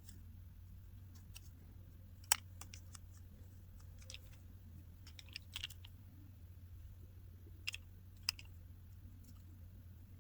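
Small tools clicking and tapping on small metal phone parts while the iPhone 8 home button's metal cover plate and its tiny screws are fitted: faint, scattered clicks, the sharpest about two seconds in, over a low steady hum.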